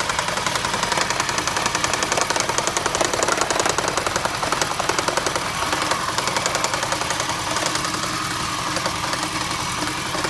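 2008 Toyota Prius's 1.5-litre four-cylinder petrol engine running with a rapid, even knocking. The knock seems to come from the transaxle but is an ignition misfire, caused by a bad igniter/coil on cylinder #1.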